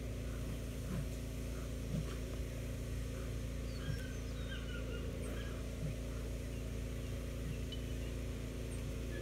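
A German shepherd puppy tugging on a rag, giving a few short, low grunts a second or two apart, over steady outdoor background noise with faint bird chirps in the middle.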